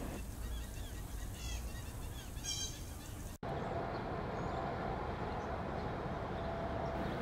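Low-level background ambience track: a few short bird calls over a low rumble, then an abrupt splice about three and a half seconds in to a steady hum with faint tones.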